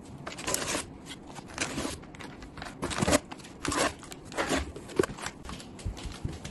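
Cling-wrapped plastic takeaway containers rustling and crinkling as they are lifted out of a cardboard box one after another, with a few sharp clacks as they are set down on a glass table, and the cardboard box being handled.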